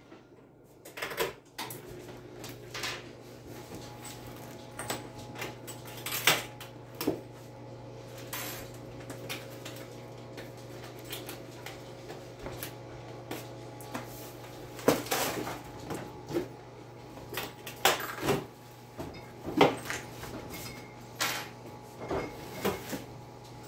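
Irregular knocks and metallic clanks as a stainless-steel chicken plucker drum is handled and pulled free of its cardboard and foam packing, over a steady low hum.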